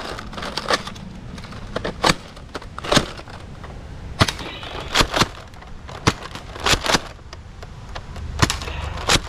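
A toy blaster making sharp plastic clicks and snaps, about a dozen at irregular intervals, some in quick pairs.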